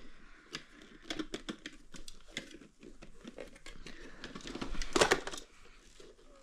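Plastic parts of a canister vacuum being handled: a string of small clicks, knocks and rustling, with a louder clatter about five seconds in.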